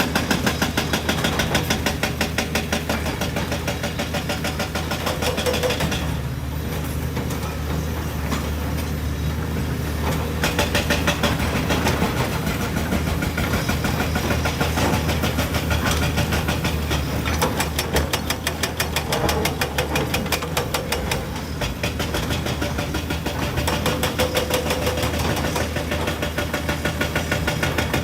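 Excavator's diesel engine running continuously with a low hum and a rapid, even clatter, its upper notes easing for a few seconds about six seconds in and again later.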